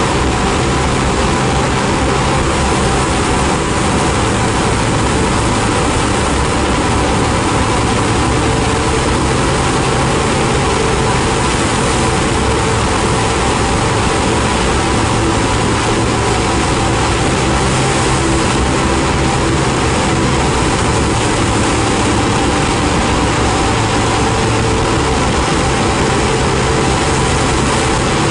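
Ambient noise-drone music: a loud, steady wall of hiss over a few held low and middle tones, with no beat.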